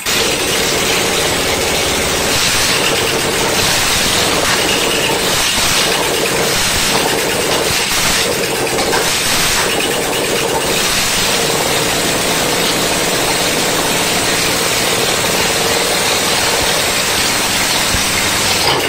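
New V-twin engine on a riding mower running on test, its speed changing several times in the first half, then running steadily.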